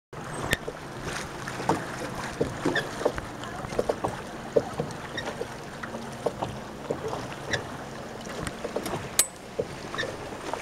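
Water lapping and splashing against the hull of a small rowed ferry boat under way: a steady wash broken by many small, irregular splashes and knocks.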